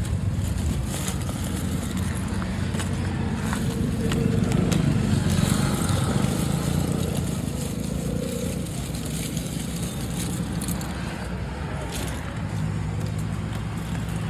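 Street traffic: motor vehicle engines running and passing, swelling louder about four to seven seconds in.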